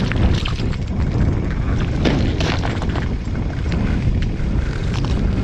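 Wind buffeting the microphone: a steady low rumble, with a few faint clicks scattered through it.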